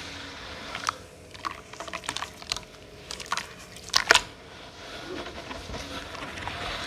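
Hands squeezing and swishing a grey slurry of crumbled pieces in water in a metal bowl: scattered wet squelches and splashes, the loudest about four seconds in, then a steadier swishing of the stirred water.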